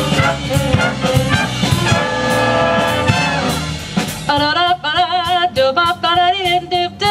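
Live big band playing swing: the brass section plays, then holds a chord that fades out. A vibrato melody line comes in over the band about four seconds in.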